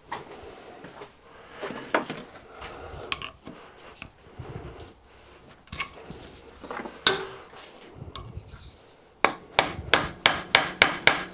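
Scattered knocks and scrapes of steel tools on a metal plate held in a vice. From about nine seconds in comes a quick run of sharp metal taps, about four a second, as a long screwdriver blade is worked into a bone-hard old leather oil seal to dig it out.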